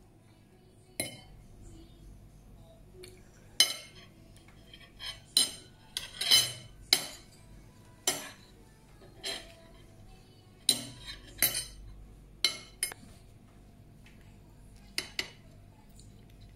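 Metal spoon and fork clinking and scraping against a ceramic plate during eating: about twenty irregular sharp clinks, thickest in the middle and thinning out near the end.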